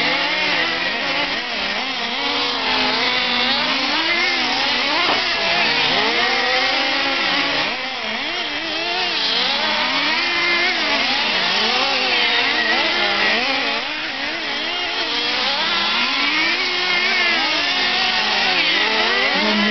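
Several radio-controlled nitro trucks' small two-stroke glow engines racing, each rising and falling in pitch over and over as it speeds up and backs off around the track, their pitches overlapping.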